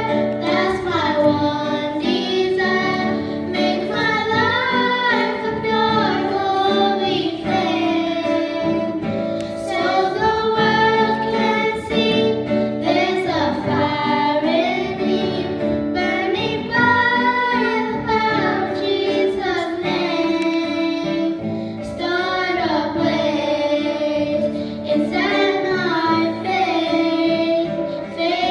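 Two young girls singing a song together, amplified through handheld microphones, with instrumental accompaniment underneath.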